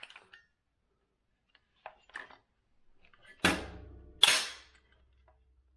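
AR-15 action cycled by hand: a few light handling clicks, then two sharp metallic clacks about a second apart, each ringing briefly. They are the charging handle drawn back and the bolt carrier slamming forward into battery.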